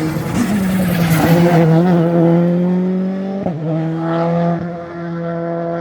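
Rally car engine under hard acceleration, its pitch climbing through a gear, with a quick upshift about three and a half seconds in before it pulls again.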